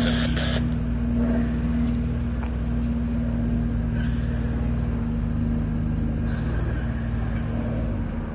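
A light single-engine propeller plane, a 1973 Cessna 177B Cardinal, drones steadily overhead, with crickets chirping in a constant high trill.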